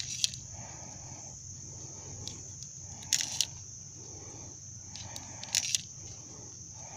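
.22 rimfire cartridges clicking as they are dropped one at a time into the tube magazine of a Marlin Model 60 rifle, three short metallic clicks a few seconds apart.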